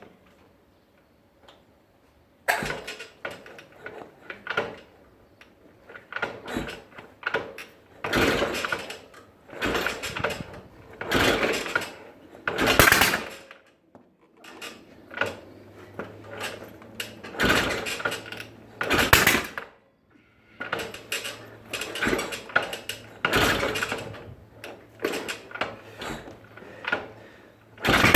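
Yamaha XS650 parallel-twin being kicked over again and again without starting: about fifteen short clattering cranking strokes, one every one and a half to two seconds. This is a non-starting engine, one that kicks back and backfires.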